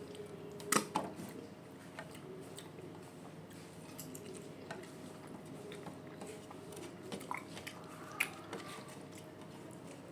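A person eating a rice meal: faint chewing with scattered small clicks and taps, the sharpest about a second in, over a low steady hum.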